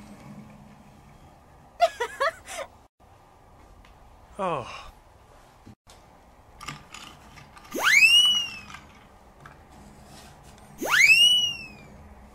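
Cartoon whistle sound effects. A short squeaky, wavering chatter comes about two seconds in, then a falling whistle glide. Two quick rising whistle swoops follow, each sweeping up and levelling off, about three seconds apart; these swoops are the loudest sounds.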